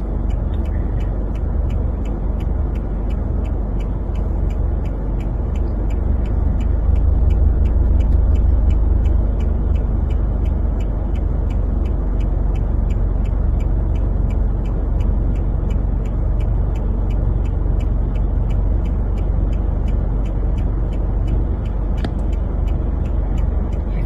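Low rumble of a car heard from inside its cabin, with a steady quick ticking of about three ticks a second over it and a single sharper click near the end.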